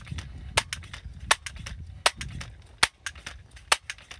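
Gamo M4 TAC multi-pump pneumatic pellet rifle being pumped up for a shot: a sharp clack at the end of each pump stroke, about every three-quarters of a second, with a low rumble of the lever between strokes.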